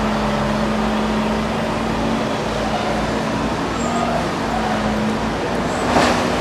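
Steady machinery noise with a constant low hum that drops out about five seconds in, and a short, louder rush near the end.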